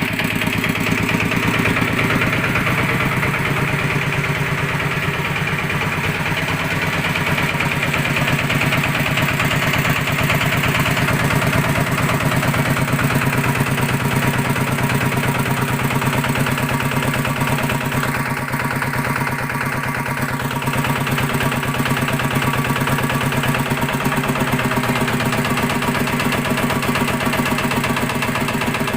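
Yanmar TF105 L single-cylinder diesel engine idling very slowly and steadily, each firing stroke heard separately, with a strange 'tok-tok-tok' knock that the owner cannot say is normal or a fault.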